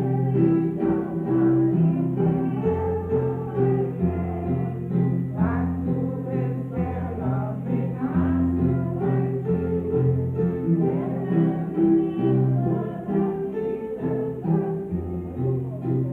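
Music with singing over an instrumental accompaniment, with held bass notes that change every second or two, in a gospel style.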